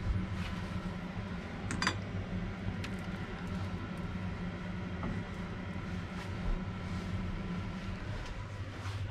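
Kitchen sounds during cooking: a steady low hum, with a sharp clink of a utensil or dish about two seconds in and a few light taps after.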